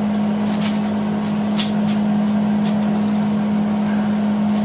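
Steady machine hum at one low pitch, with a few light clicks and taps over it.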